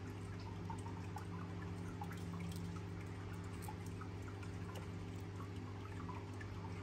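A steady low hum with many faint, irregular small ticks and drips over it.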